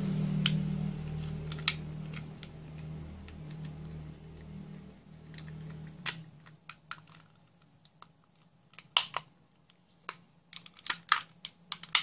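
Sharp plastic clicks and taps as the green plastic body of a solar search light is handled and its head fitted back on, with a quick cluster of clicks near the end. A low hum fades out over the first half.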